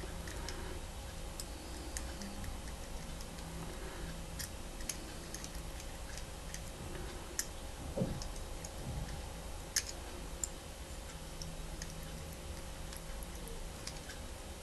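Faint, irregular clicking of a combination lock's number wheels being turned by hand, a few clicks louder than the rest, over a low steady hum.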